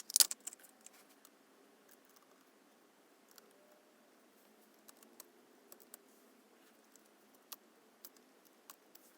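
Small plastic clicks and taps of a DJI Mavic Pro drone being handled and taken apart, with a sharp burst of clicks just after the start and then scattered single clicks.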